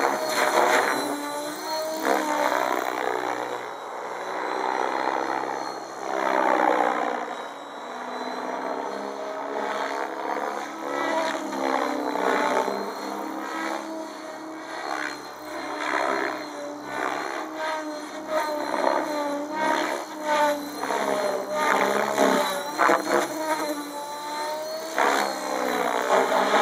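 Compass 7HV electric 700-size RC helicopter in flight, its motor and rotor-blade whine repeatedly sweeping up and down in pitch and swelling and fading as it manoeuvres and passes.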